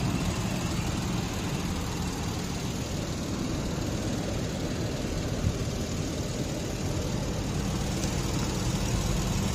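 Nissan Pathfinder's V6 engine idling steadily, heard from the open engine bay with the hood up.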